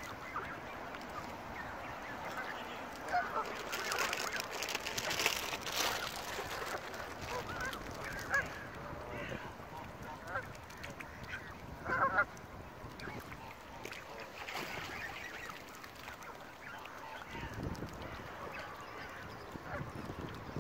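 Canada geese honking on the water, many short calls from a flock gathered close together, with a louder cluster of calls about twelve seconds in.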